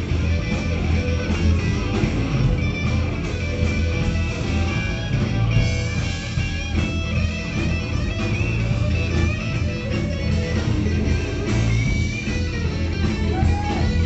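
A live blues-rock band playing, led by electric guitars over a steady drum and low-end groove. A guitar bends notes over the last couple of seconds.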